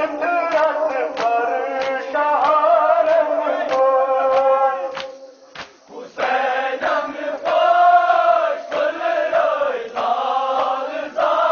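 Male voices chanting a Kashmiri nohay, a Muharram lament, with evenly spaced thuds of chest-beating (matam) keeping time, about one and a half beats a second. The chanting and beating drop away briefly about five seconds in, then resume.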